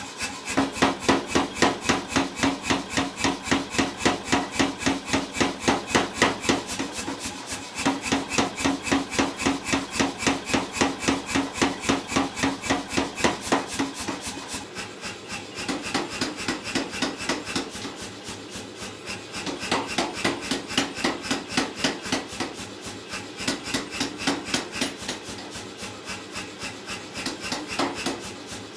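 Power hammer pounding a glowing steel bar in rapid, even blows, with a few brief pauses as the bar is repositioned. A steady metallic ring sounds under the blows in the first half.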